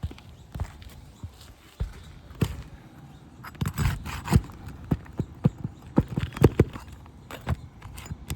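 Hammer striking a roofer's snake tool driven under an asphalt shingle to free its nails. It makes a series of sharp metallic knocks, sparse at first and coming faster and louder through the second half.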